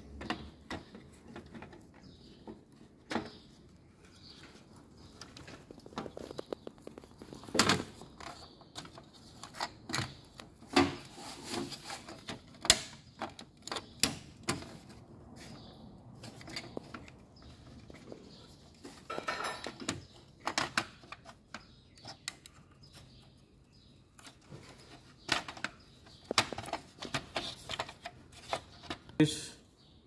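Scattered plastic clicks, taps and knocks with faint rustling as a washing machine's control board and selector switch are handled and pressed into the plastic control panel.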